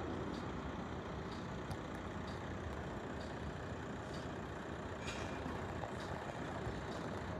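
Steady low rumble of road traffic and idling vehicles, with faint scattered ticks and a brief high squeal about five seconds in.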